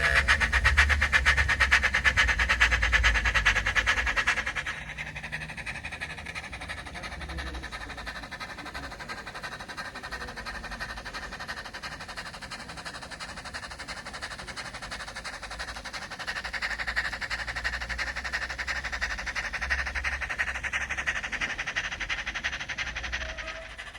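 Steam locomotive exhaust chuffing from a sound decoder played through the small speaker of an OO9 Small England 0-4-0 model, a fast, even beat. It drops to a softer beat after about four seconds and grows louder again past the middle. There is a brief whistle toot near the end.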